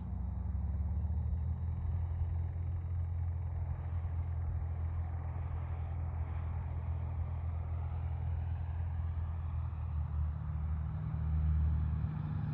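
Cessna 180's six-cylinder piston engine and propeller running at steady power, a constant low drone that swells slightly near the end.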